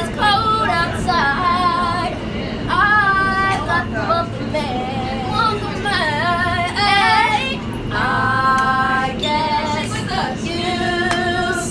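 Women singing a cappella, held notes wavering with vibrato, over the steady low hum of a moving subway car.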